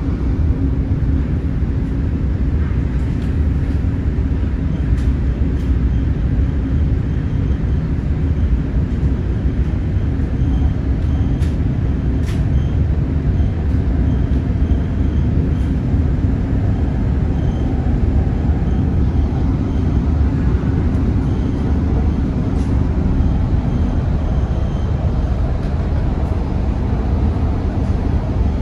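Steady low rumble of a Doha Metro train running, heard from inside the carriage, with a few faint light ticks.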